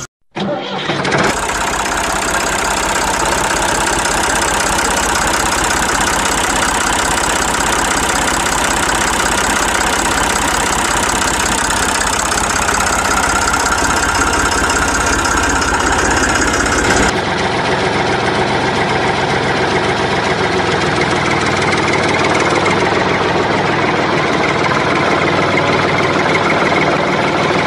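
Tractor engine running steadily with a dense rattling note; about 17 seconds in, the note changes and loses its deepest part.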